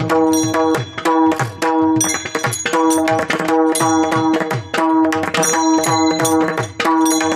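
Pakhawaj drumming in a fast, rhythmic kirtan accompaniment. Its deep bass strokes drop in pitch, and they play over a steady held drone note, with bright ringing strikes at regular intervals.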